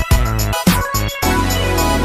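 Background music: an electronic track with a beat of drum hits over a bass line.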